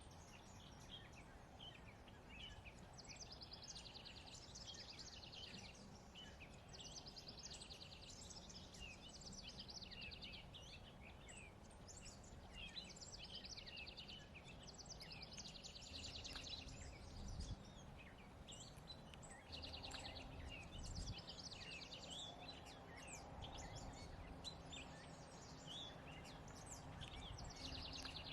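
Faint songbirds singing outdoors: a rapid trill repeated every few seconds, mixed with scattered short chirps, over a low steady background rumble.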